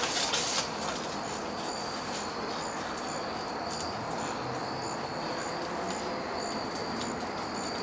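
Insects chirping: a steady high trill with a shorter, higher chirp repeating about twice a second. A brief burst of noise comes in the first half second.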